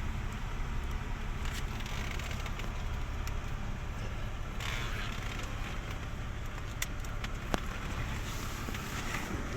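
Mercedes-Benz CLK320's 3.2-litre V6 idling with the air conditioning running during a refrigerant recharge: a steady low rumble, with a few light clicks in the second half.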